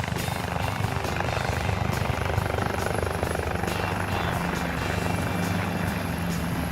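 Helicopter running steadily, a constant even rotor and engine noise with a low hum.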